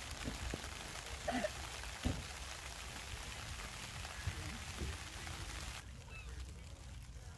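Steady hiss of rain, with a few faint short calls in it. Near the end the rain sound cuts off abruptly and gulls start calling in short, rising-and-falling cries.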